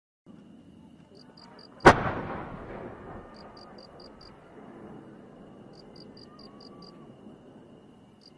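A single loud firework boom about two seconds in, echoing away over about a second. Low ambient noise follows while the aerial shell climbs, with short runs of high chirps repeating every couple of seconds.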